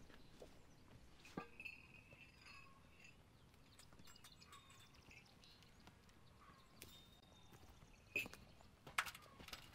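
Near silence with a few faint sharp knocks, the two loudest near the end, and some faint short high tones about two seconds in.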